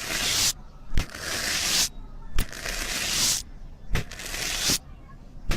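Slime being squeezed and worked by hand in a repeating cycle. About every second and a half there is a sharp pop, each followed by roughly a second of crackling, squishing noise.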